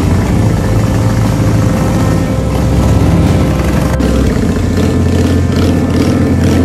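Several cruiser motorcycle engines running at low speed as the bikes pull away one after another.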